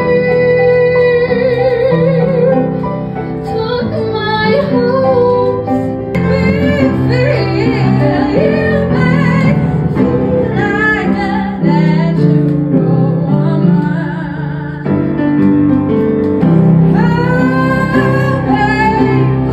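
A female voice singing a melody with vibrato over instrumental accompaniment.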